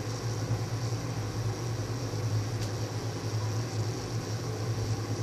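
A steady low hum with an even hiss over it, the sound of a machine such as a fan running in the background.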